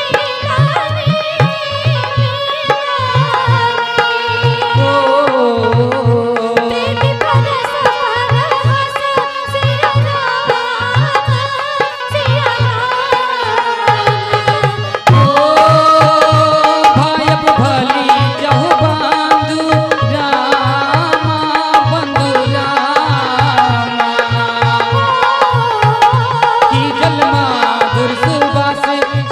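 Instrumental interlude of Indian devotional music: a hand drum keeps a steady low beat while a sustained, wavering melody line plays over it. About halfway through, a new, slightly louder melodic phrase begins.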